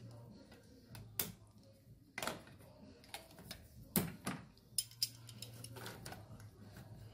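A few irregular sharp clicks and metallic clinks of hand tools (hose-clamp pliers and a hose cutter) being handled against the metal of a transmission cooler and its fittings, the loudest about four seconds in.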